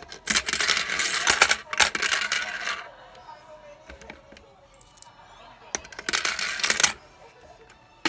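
Coins clinking and clattering inside a clear plastic coin-sorting piggy bank, which sorts them by denomination into stacks. The clatter comes in two bursts: a long one starting about half a second in and lasting over two seconds, and a shorter one near the end.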